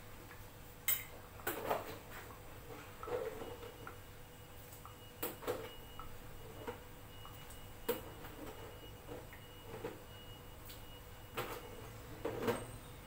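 Kitchenware clinking and knocking: scattered sharp knocks of a plastic bowl and utensils against a cooking pot as chicken feet are tipped into boiling water. A faint steady high tone joins about three seconds in.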